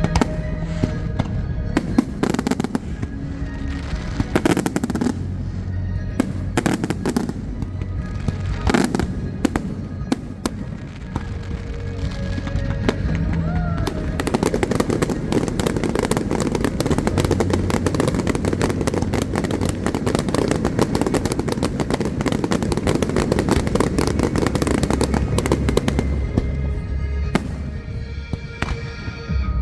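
Fireworks going off over show music: a few separate bangs in the first half, then from about halfway a dense, rapid crackling barrage that lasts around twelve seconds before thinning out.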